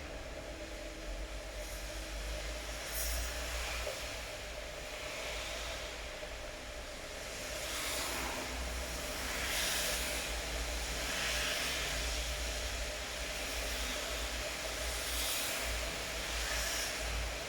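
Steady rain hiss over a low rumble, with several swells of louder hiss that rise and fade over a second or two each.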